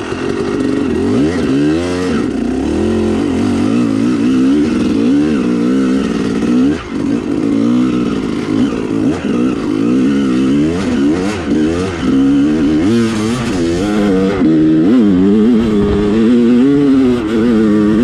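Dirt bike engine revving up and down as it is ridden, the pitch rising and falling every second or so as the throttle is opened and closed.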